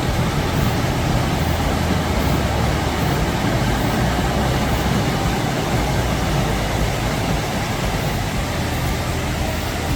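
Mountain stream rushing: a loud, steady, even wash of flowing water.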